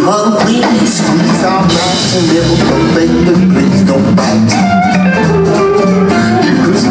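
Blues band playing live without vocals: electric guitar over drums.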